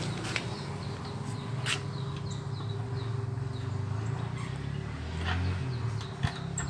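A small bird chirping over and over at about three chirps a second, over a steady low hum, with a few sharp clicks as plastic covers and fasteners come off a motorcycle.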